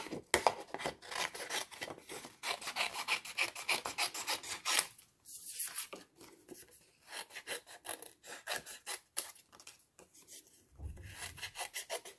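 Scissors snipping through cardstock, runs of quick crisp cuts broken by short pauses.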